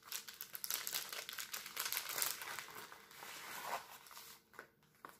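Crinkling of plastic as a diamond painting kit is handled: the bag of drill packets and the film-covered canvas rustle under the hands, stopping about four and a half seconds in.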